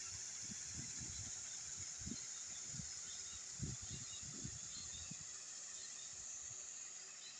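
Outdoor ambience: a steady high hiss, with wind gusting on the microphone for the first five seconds and then dying down, and faint chirps later on.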